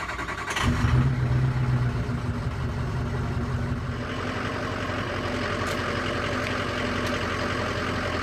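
Pickup truck engine starting about half a second in, then idling steadily.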